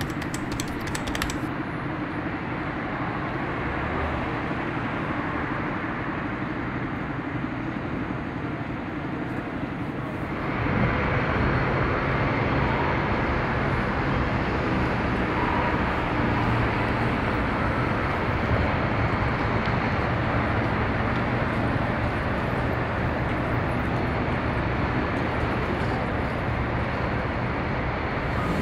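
Outdoor city street ambience with road traffic running. About ten seconds in it becomes louder, with a steady low engine hum from vehicles.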